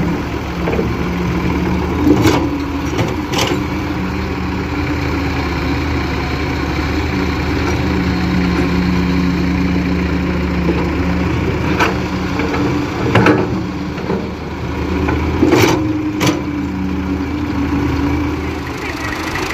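Diesel engines of an excavator and a Massey Ferguson 260 tractor running steadily at low revs. Over them come about five sharp knocks, a few seconds apart, as the excavator's steel bucket digs and dumps earth into the tractor's trolley.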